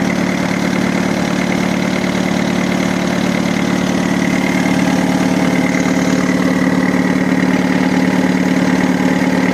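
Perkins 4.108 four-cylinder marine diesel running steadily, heard up close in the engine compartment alongside its hydraulic drive, with a steady high whine over the engine note.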